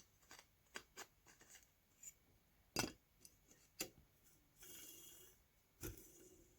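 Faint scattered clicks and taps from small parts of a dismantled vacuum cleaner motor being handled, with a short rubbing hiss about five seconds in.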